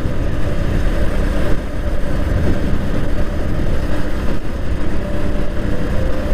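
Motorcycle on the move, heard through a lavalier mic tucked inside the rider's helmet: loud, deep wind rumble with the engine's faint steady hum under it.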